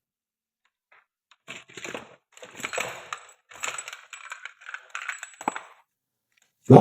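Irregular clattering and scraping of small hard parts being handled, from about a second and a half in, then a loud low thump right at the end.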